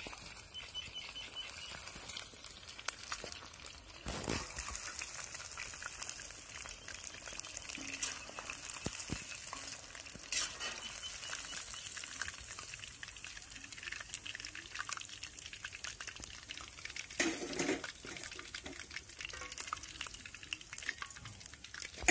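Chicken feet deep-frying in hot oil in an iron kadai: a steady crackling sizzle, with a few louder knocks.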